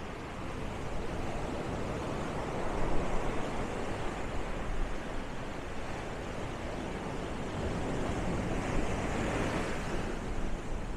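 Ocean surf washing steadily, with a wave swelling up about nine seconds in.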